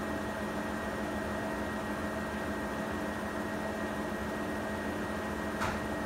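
Profilo CMS140DTR front-loading washing machine spinning at speed in its 1200 rpm spin cycle: a steady hum with a constant motor whine. A brief sharp noise sounds just before the end.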